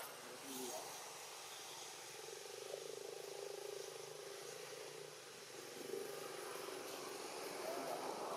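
A distant engine droning, swelling a couple of seconds in and fading again, under faint outdoor background noise.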